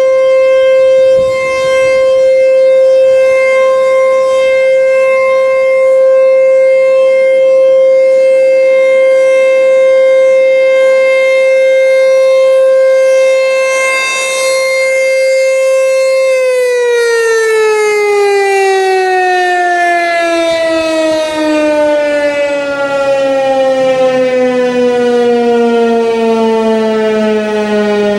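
American Signal T-128 rotating electromechanical siren sounding a steady full-alert tone, its loudness swelling and dipping slightly as the head turns. About 16 seconds in it shuts off and winds down, its pitch falling slowly and smoothly.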